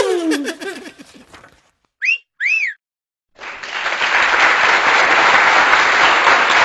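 Edited-in sound effects: a wavering tone slides down in pitch and fades out, then two short whistles come about two seconds in. From about three and a half seconds on there is steady applause.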